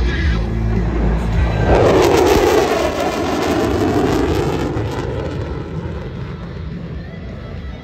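Military jet passing overhead: its engine noise swells to a peak about two seconds in, with a falling sweep in pitch, then fades away.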